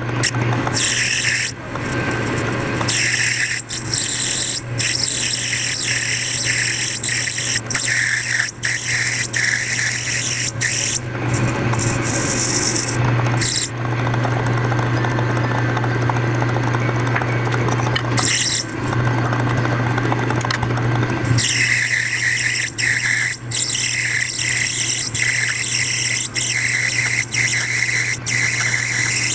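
A lathe motor humming steadily while a hand-held cutting tool scrapes and squeals against the spinning workpiece in passes that start and stop.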